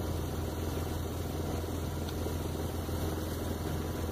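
An engine running steadily at idle, an even low hum that does not change.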